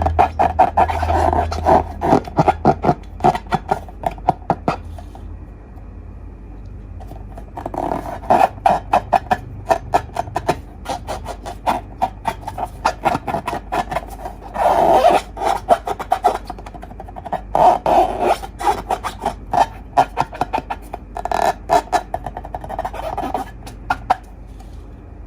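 Slime being squished and worked by hand, giving rapid sticky clicks and pops. These come in about five bursts of a few seconds each, with short quiet pauses between.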